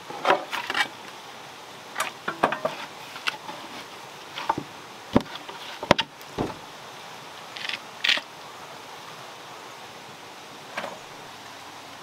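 A metal ladle and a wooden stick stirring and scooping thick mash in a large metal pot: irregular knocks, scrapes and clinks against the pot, over a steady background hiss.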